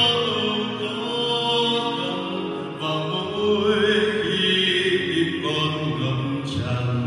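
A man singing a Catholic hymn with keyboard accompaniment, played over a church's Bose MA12 column loudspeakers.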